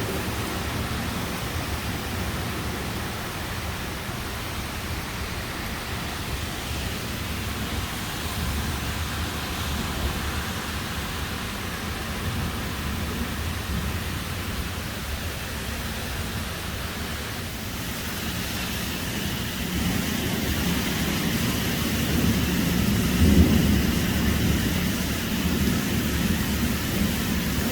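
Thunderstorm: a steady hiss of heavy rain with low thunder rumbling. The rumble grows louder in the last third, peaking a few seconds before the end.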